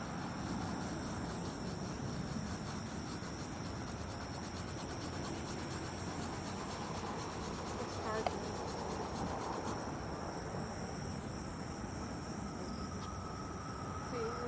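A chorus of insects makes a steady high buzzing that swells and fades in waves over a low, even background rumble. There is a single short click just past halfway.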